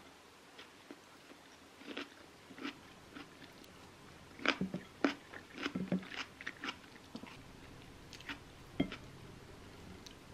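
Wooden chopsticks picking through fries and kimchi with melted cheese on a ceramic plate: scattered sharp clicks and scrapes of the sticks against the plate and soft sounds of the food shifting, busiest around the middle.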